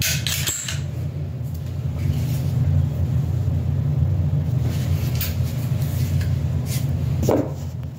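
A steady low rumble with a few short sharp clicks from a Springfield pistol being handled, near the start and again late on.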